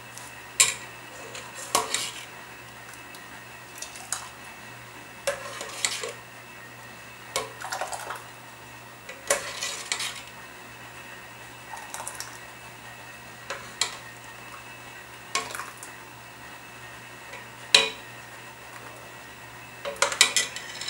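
Metal ladle clinking and scraping against a stainless steel pot of jam as it is scooped out to fill jars, a sharp clink or short cluster of clinks every second or two.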